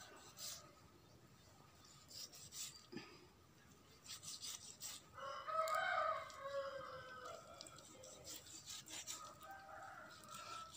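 A rooster crows: one long call about five seconds in, and a fainter call near the end. Under it, a knife scrapes and clicks as it cuts through a dressed chicken's leg.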